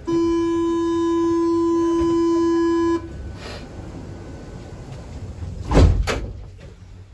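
Paris Métro door-closing warning buzzer sounding one steady tone for about three seconds, signalling that the train doors are about to shut. About three seconds after it stops come two loud thumps close together.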